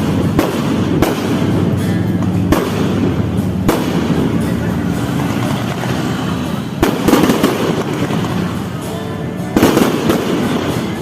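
Fireworks going off: sharp bangs about once a second, then denser bursts of crackling a little past halfway and again near the end.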